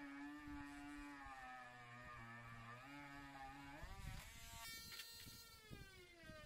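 Faint background music of held notes that change pitch every second or so. Between about four and six seconds in come a few soft crackles as masking tape is peeled off the guitar body.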